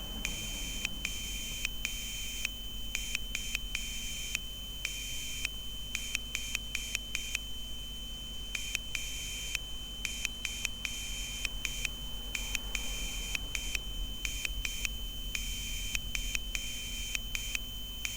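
Morse code keyed on a buzzer by a Raspberry Pi Pico W: one high-pitched tone beeping on and off in short dots and longer dashes, with a longer pause about eight seconds in.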